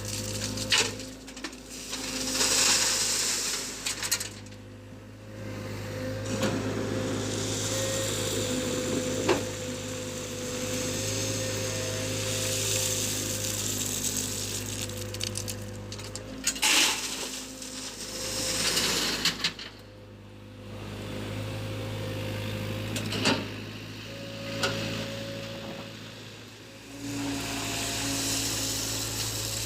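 Excavator running steadily, broken several times by loud scraping, rattling bursts of gravel being worked.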